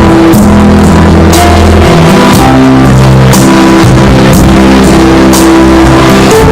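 Loud instrumental song intro with guitar, bass and drums: held chords over a bass line that changes every second or two, and a cymbal stroke about once a second. No singing.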